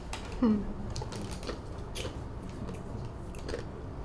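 A brief falling vocal sound about half a second in, then scattered light clicks and taps over a low steady hum.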